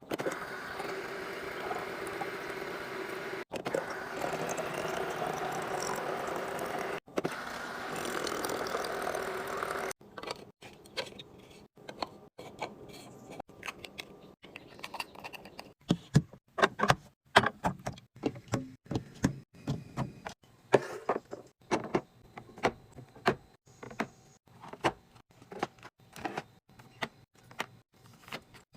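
Restocking sounds: drink containers and packaged items being handled and set into a mini fridge. First a dense steady rustle that breaks off twice, then a run of sharp clicks, taps and clinks of items being placed.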